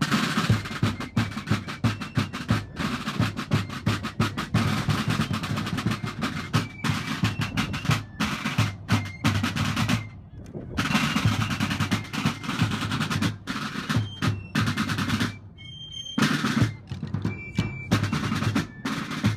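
Snare drum music: fast drum rolls and strokes, pausing briefly about halfway through and again near the end.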